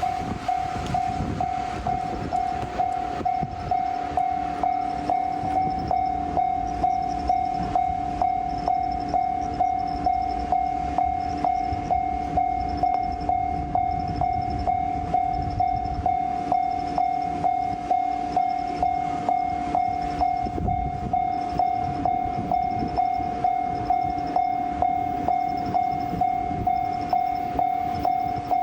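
A Japanese level-crossing warning bell ringing continuously: a steady electronic 'kan-kan' tone struck at an even, regular beat, with a low rumble beneath.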